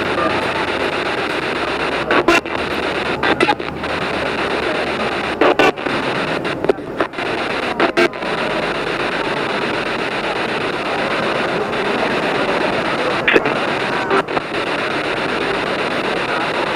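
SB7 spirit box sweeping through radio stations: a steady hiss of static broken at irregular moments by short clicks and snippets of sound.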